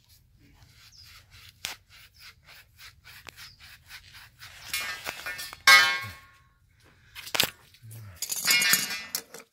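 Emery cloth rasping on the end of a copper pipe in short, repeated strokes. About halfway through comes a louder metallic sound with a ringing tone, then a sharp click and a noisy rustle near the end.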